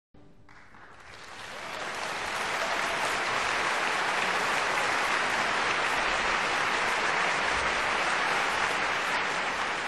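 Applause from a crowd, swelling in over the first two seconds and then holding steady.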